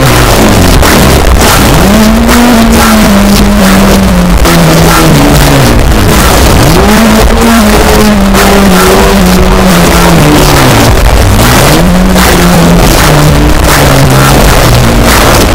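Brutal death metal track playing loud and dense: heavily distorted low guitars over rapid drumming, with a low pitched line that dips and swoops back up about every four to five seconds.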